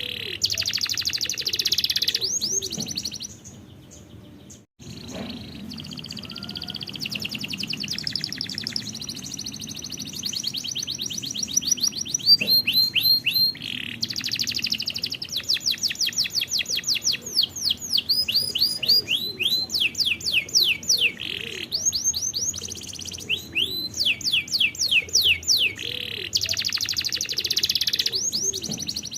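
Domestic canary singing: fast rolls of repeated, quickly sweeping whistled notes, one run after another, the kind of song used to train young canaries. The song drops away briefly about four seconds in, then carries on.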